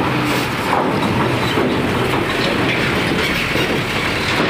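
Steady rattling and clattering of vehicles rolling over a ferry's steel loading ramp during loading, over the running of heavy truck engines.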